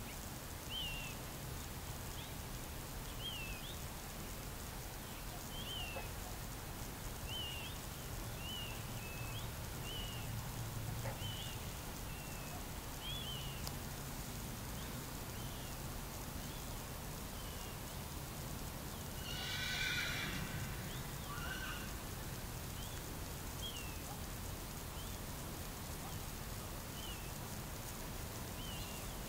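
Short, high chirping animal calls repeating about once a second, with one louder call lasting about a second about two-thirds of the way in, over a low steady rumble.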